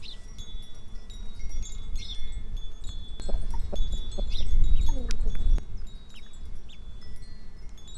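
Wind chimes ringing, several high tones starting one after another and overlapping as they ring on. Short high chirps come every second or two, over a low rumble that drops away a little over halfway through.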